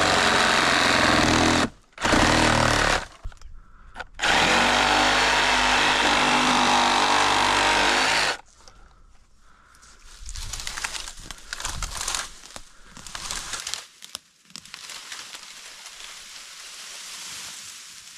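Power saw cutting branches from a fallen tree: the motor runs under load in a few bursts, with short pauses, and stops about eight seconds in. After that comes quieter crackling and rustling of leafy branches being handled.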